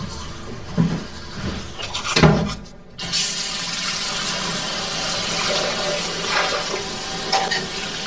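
A few soft footsteps, then about three seconds in a bathroom tap is turned on and water runs steadily into the sink.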